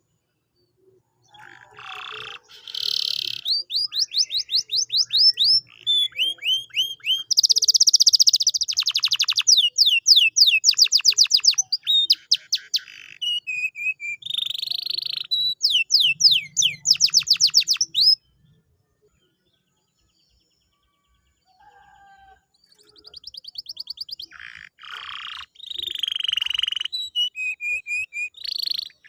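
Domestic canary singing: long phrases of rapid trills and quick sweeping whistled notes. The song breaks off about two-thirds of the way through and starts again a few seconds later.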